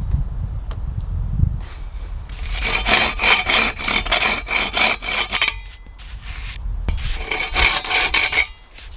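Hand saw cutting through wood in two bouts of quick, even rasping strokes, the first about two and a half seconds in and the second near the end.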